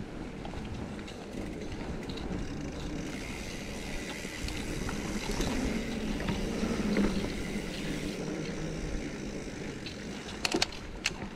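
Mountain bike rolling along a dirt singletrack trail: a steady rumble of tyres on the ground with drivetrain and frame rattle, and a few sharp knocks about ten seconds in.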